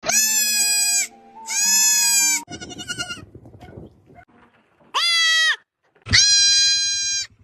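Goats bleating: four loud, long, high-pitched calls of about a second each, held at a steady pitch, with quieter scattered sounds between them and a low pulsing sound under the last call.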